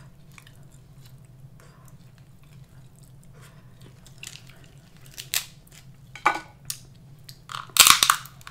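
Close-miked eating of Dungeness crab: quiet chewing and mouth smacks, then sharp wet crackles and snaps as the thin crab shell is broken apart by hand, loudest near the end.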